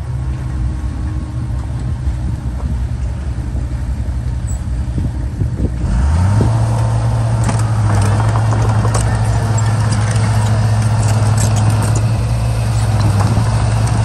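Komatsu crawler bulldozer's diesel engine running at low revs, then revving up about six seconds in and holding a higher, louder pitch as the dozer moves off. Its steel tracks clank and rocks knock under them.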